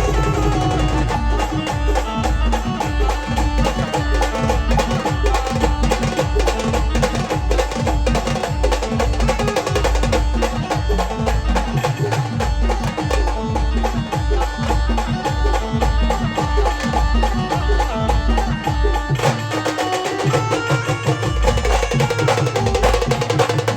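Maharashtrian village band playing a Kanbai song: a pounding drum beat under a sustained melody line, with the bass beat dropping out briefly a little before the end.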